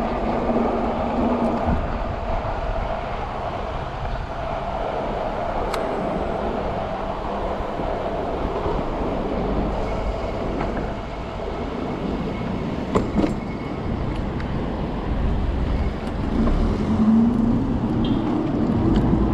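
Riding noise from an electric bike moving through city traffic: a steady rumble of road and traffic with wind on the microphone, and a few brief ticks. Near the end a whine rises in pitch.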